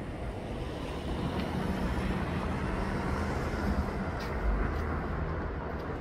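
City street traffic: a steady rumble of passing vehicles, loudest about four and a half seconds in.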